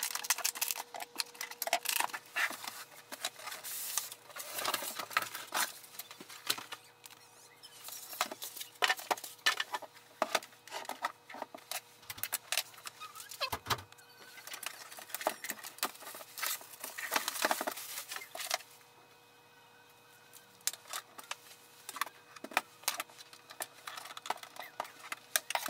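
Hands unpacking a compact inkjet printer: irregular rustling, tearing and clicking of cardboard, plastic and packing tape, including scissors cutting tape on the printer's casing. A faint steady hum runs underneath, and there is a near-quiet pause of about two seconds roughly three quarters of the way through.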